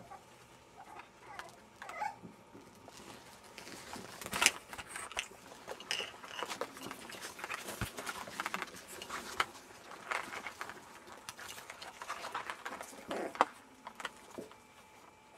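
Jack Russell Terrier puppies scuffling about: the patter and scratching of small paws and claws, many short clicks and scrapes, and a few brief squeaks in the first couple of seconds.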